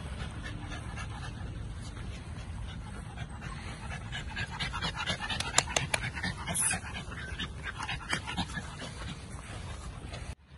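American bully puppy panting, with a cluster of sharp clicks and rustles about halfway through.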